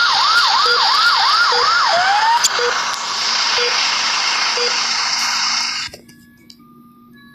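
Ambulance siren in a fast yelp, about two up-and-down cycles a second, switching about two seconds in to a slower rising wail, over a loud steady rush. The sound cuts off abruptly near six seconds, leaving only faint short beeps.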